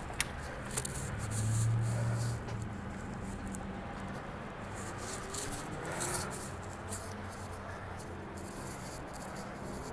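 Footsteps and clothing rustle on a concrete walkway, with a few scattered clicks, over a low steady hum that swells for a second or so near the start.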